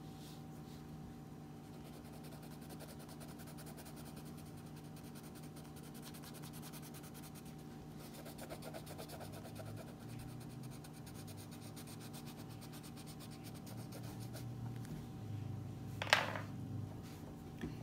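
Crayon scratching back and forth on coloring book paper in quick strokes, over a faint steady hum. A brief louder rustle about sixteen seconds in, as a sleeve sweeps across the page.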